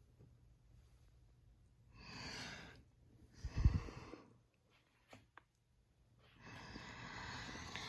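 A person breathing out heavily close to the microphone, three long breaths, with a soft low bump during the second.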